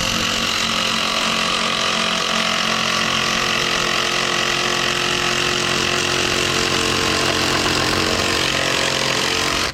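A motor-driven machine running steadily at one speed, with a steady hum under a hiss, starting and stopping abruptly.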